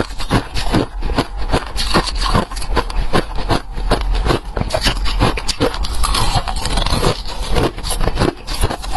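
Close-up chewing of freezer frost, a dense run of sharp crunches several times a second without pause.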